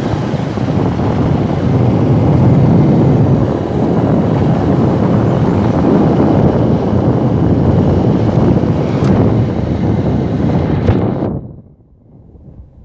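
Heavy wind buffeting on the microphone of a moving motorbike, a loud steady rumble with road noise beneath it. It cuts off suddenly near the end, leaving a much quieter background.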